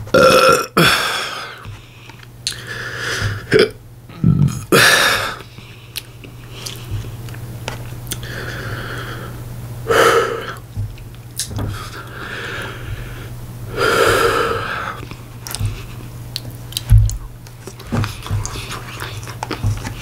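A man burping several times, a few seconds apart, while eating ice cream; small clicks and mouth sounds in between, over a steady low hum.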